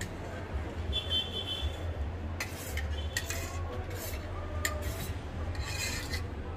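Tableware clinking: a steel serving bowl and spoon knocking against plates as food is served, a few sharp clinks with a short metallic ring about a second in, over a steady low hum.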